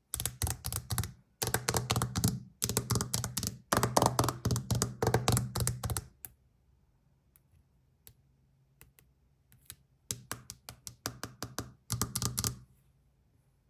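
Rapid keyboard typing in bursts: dense runs of key clicks for about six seconds, a few scattered clicks, then another run from about ten seconds in.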